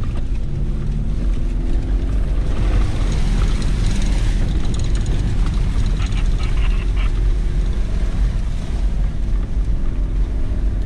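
Toyota 90 Series Prado 4x4 engine running steadily at low speed off-road, heard from inside the cabin. For a few seconds in the middle, water splashes up around the vehicle as it crosses a shallow creek.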